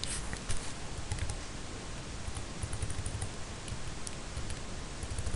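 Faint, irregular clicks of a computer keyboard and mouse as the web page is scrolled, over a steady low hiss.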